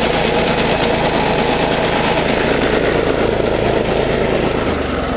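Single-cylinder engine of an Exmark 21-inch commercial walk-behind mower running steadily with the blade drive disengaged. Its vibration lets the blade slowly creep round, which the mechanic takes as normal for a broken-in single-cylinder mower.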